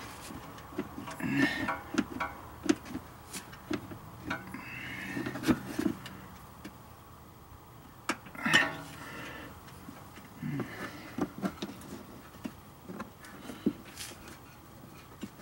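Scattered small clicks, taps and rattles of hands working a plastic wiring connector loose from a sensor wire under a car's front suspension.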